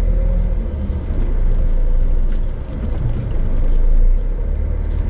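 Scania S500 truck's diesel engine running with a steady low rumble that rises and falls as the tractor unit manoeuvres on slippery ground, where its drive wheels keep losing grip.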